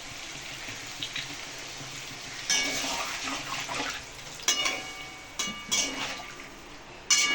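Cauliflower and potato curry with a little added water sizzling in the pan, then a metal spoon stirring and scraping it and clinking against the pan with short rings, three times.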